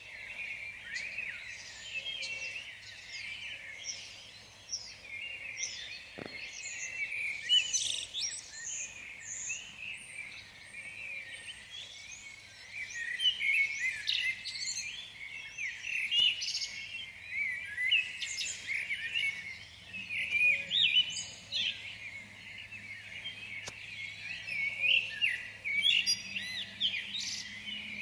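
Many small birds chirping and twittering at once, a dense chorus of short overlapping calls that keeps on without pause.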